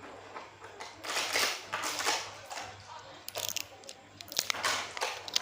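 Toy packaging being handled and torn open: crinkling, crunching noises in several short bursts, then a run of small clicks and taps.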